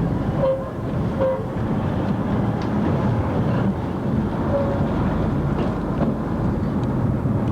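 Narrow-gauge train running, a steady low rumble throughout.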